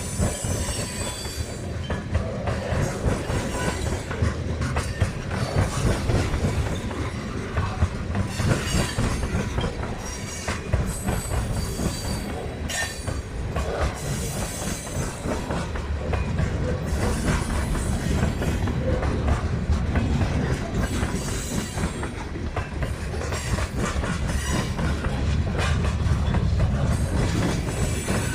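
Freight train cars rolling past: a steady rumble and clatter of steel wheels on the rails, with some high wheel squeal.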